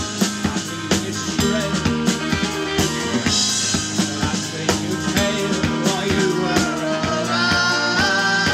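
Live rock band playing: a drum kit keeps a steady beat under electric guitars, bass guitar and banjo, with a wavering held high note entering near the end.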